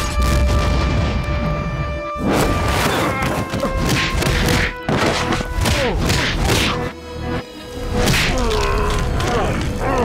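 Cartoon fistfight sound effects over dramatic music: repeated punches, thuds and crashing debris, with strained yells from the fighters near the end.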